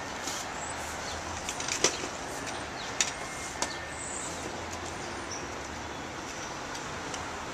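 Steady city street traffic noise with a low hum, broken by a few sharp knocks and clicks of equipment being handled and loaded, the loudest about two seconds in and two more about a second later.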